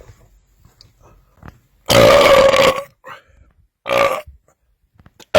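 A man belching loudly from gulped carbonated cream soda: a long, steady-pitched belch about two seconds in, a shorter one about four seconds in, and another starting right at the end.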